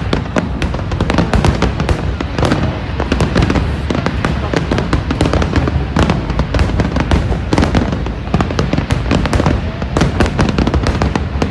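Fireworks display: a rapid, continuous run of bangs and crackles over a low rumble, with music playing underneath.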